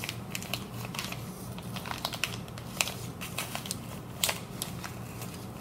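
Small plastic bag of baking soda crinkling and rustling as a spoon digs powder out of it, in irregular small clicks and crackles, the sharpest a little over a second before the end.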